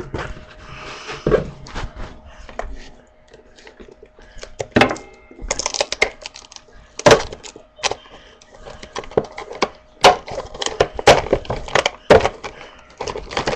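Retail packaging being handled and pulled open by hand: irregular cracks, clicks and knocks of plastic and cardboard, with rustling between them.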